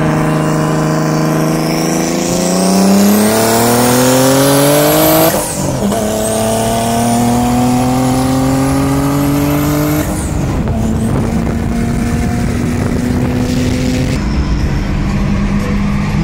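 Turbocharged BMW engines pulling hard through the gears: the engine note climbs steadily, drops at a gear change about five seconds in, climbs again to a second shift about ten seconds in, then holds steady at speed. A thin high turbo whistle rises along with the revs during each pull.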